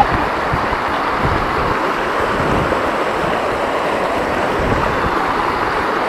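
Mountain river rushing steadily over rocks, heard close by, a continuous even roar of water.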